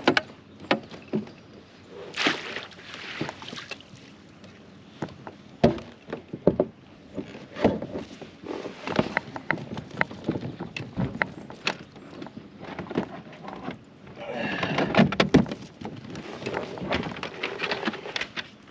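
Water splashing beside a plastic fishing kayak as a hooked smallmouth bass is brought alongside and landed, with scattered knocks and rattles against the hull and gear. A longer spell of splashing comes about three-quarters of the way through.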